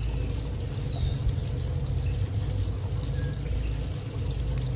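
Water trickling and splashing steadily in a garden pond's water feature, an even continuous rush with no break.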